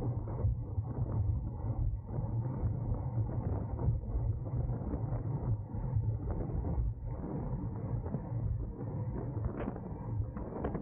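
Wind rushing over the microphone of a camera riding on a racing bicycle, a steady low rumble, with frequent small creaks and clicks from the bike.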